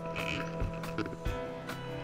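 Background music of sustained chords with light percussive hits; the chord changes a little over a second in.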